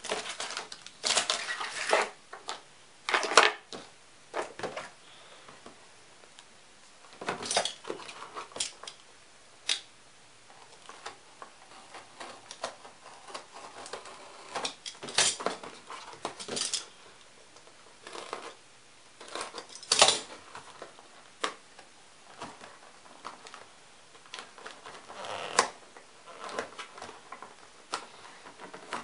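Unboxing handling noise: irregular clicks, taps and short rustles of packaging and small hard parts being handled, with a sharp knock every few seconds.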